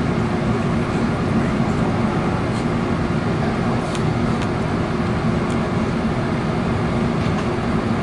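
Steady rumble of a passenger train running, heard inside the coach, with a constant low hum and a few faint ticks.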